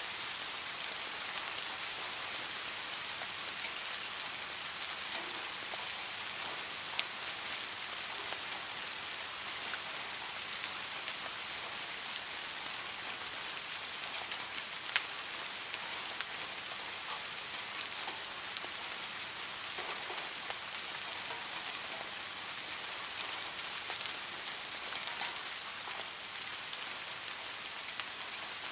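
Steady rain falling, a dense even hiss with scattered individual drops ticking on a surface, a couple of sharper drops standing out.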